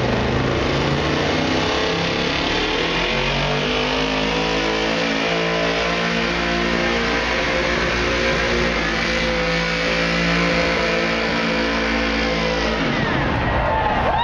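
Pickup truck engine run hard at high revs while pulling a weight-transfer sled, its pitch climbing and dropping in repeated steps. The engine cuts off about 13 seconds in as the pull ends, and a whistle sounds just before the end.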